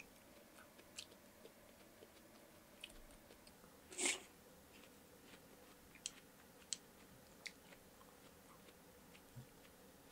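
Close-miked chewing of watermelon pieces from watermelon hwachae (watermelon punch), heard as soft, sparse mouth clicks with one louder burst about four seconds in.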